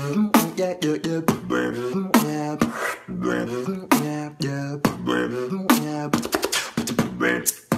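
Solo human beatboxing: sharp mouth-drum hits roughly once a second, woven with held, hummed pitched vocal notes, and a quick roll of clicks about six seconds in.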